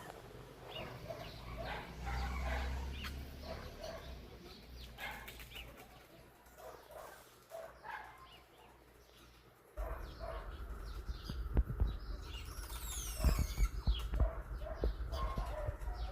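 Wild birds calling at a feeder, a run of many short chirps and whistles with a high falling whistle series near the end. About ten seconds in a low rumble with sharp knocks sets in, louder than the calls.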